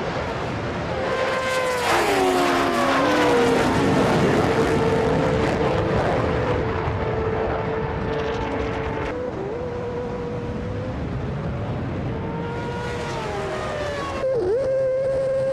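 High-revving racing engines at full power, their pitch falling in long glides as vehicles pass, with abrupt changes of sound about 9 and 14 seconds in.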